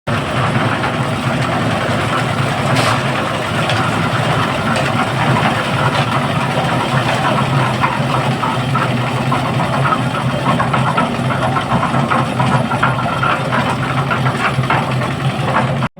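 An engine running steadily with a constant low hum, and light irregular clatter on top.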